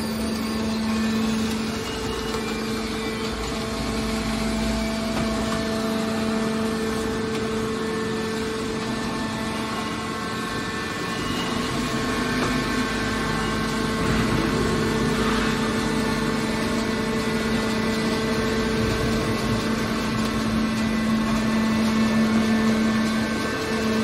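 Hydraulic scrap metal baler's power unit running with a steady hum.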